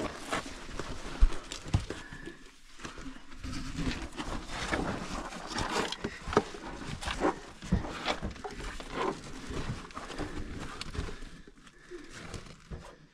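Irregular scrapes, knocks and rustling of a person clambering over rock into a narrow cave passage.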